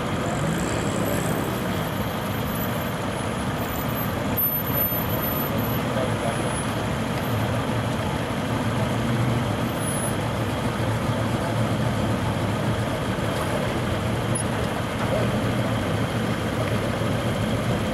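Cars and pickup trucks rolling slowly past in a queue: a steady mix of engine hum and tyre noise, with no single event standing out.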